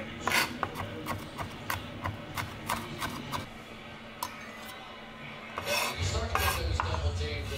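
Chef's knife chopping minced garlic on a wooden cutting board, sharp taps about three a second, then the blade scraping the garlic along the board near the end.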